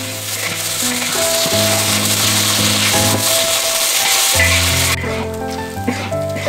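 Hot oil sizzling in a wok as dried chilies and spices fry and are stirred with a spatula; the hiss becomes much quieter about five seconds in.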